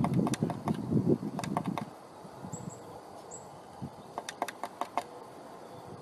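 Blue tit tapping and scrabbling at the wooden entrance hole of a nest box: a dense run of quick taps and knocks for about two seconds, two brief high peeps in the middle, then another short run of taps.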